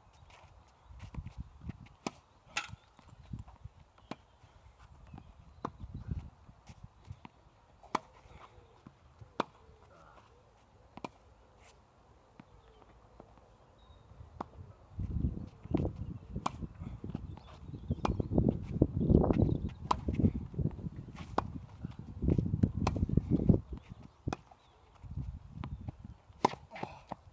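Tennis balls struck with a racket and bouncing on a hard court: sharp, irregular pops a few seconds apart. A louder low rumble comes and goes through the second half.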